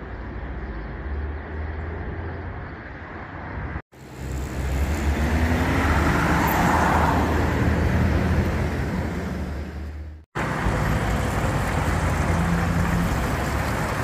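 Road traffic on a busy highway: engines rumbling and tyres on the road, with a vehicle passing close about halfway through. The sound breaks off sharply twice and picks up again.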